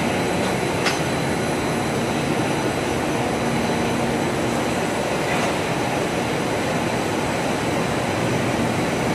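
Film coating machine running: a steady, even mechanical noise from its rollers and drives as the film runs through, with a few faint steady tones over it and a small click about a second in.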